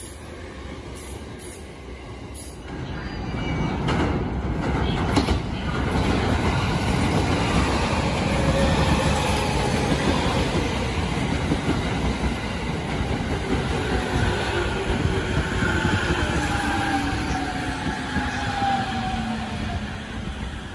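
JR Musashino Line commuter electric train pulling out: the rumble of its wheels on the rails and the whine of its motors build up from about three seconds in. Two sharp clicks come as it gets moving. In the second half, several motor tones slide slowly downward in pitch as the cars go by.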